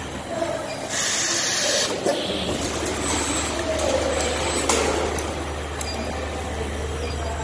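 Automatic gang saw blade welding machine at work: a burst of compressed-air hiss from its pneumatics about a second in, lasting about a second. After it comes a steady low hum with faint wavering squeals and light clicks.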